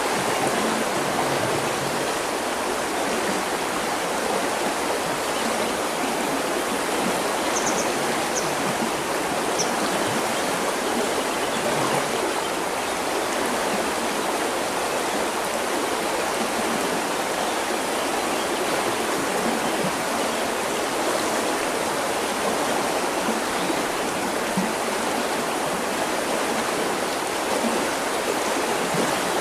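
River water rushing steadily. A bird gives a few short, high chirps about eight seconds in.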